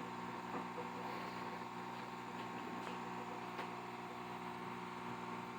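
Steady electrical hum from running bench equipment, with a few faint ticks.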